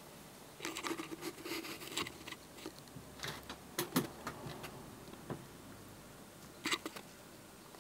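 Faint, irregular clicks and ticks with light rustling over quiet room tone, the sharpest clicks about four seconds in and again near the end.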